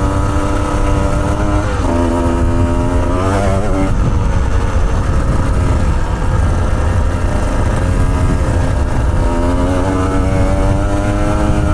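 150 cc dirt bike engine running as it is ridden over a rough off-camber track. The pitch dips about two seconds in, picks up briefly, and climbs slowly again near the end as the throttle changes. A heavy low rumble runs underneath.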